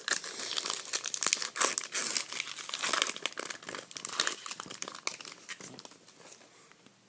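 A trading card pack's plastic wrapper being torn open and crinkled by hand: a dense, crackling rustle that dies away near the end.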